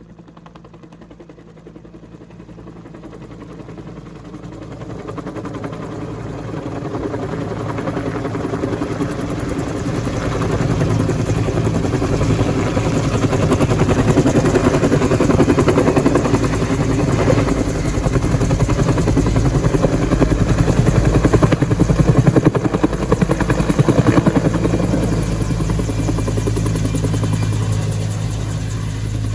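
Bell 205 (Huey) helicopter approaching, its rotor beating in a fast steady pulse over a turbine whine. It grows steadily louder over about twenty seconds to a peak, then eases a little near the end.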